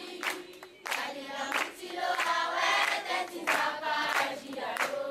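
A group of children singing together in chorus, with sharp hand claps through the singing.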